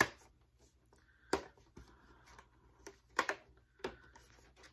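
Cardboard chocolate advent calendar being handled as its little door is worked open: a few sharp taps and clicks of the card, with short rustling scrapes a little after the middle.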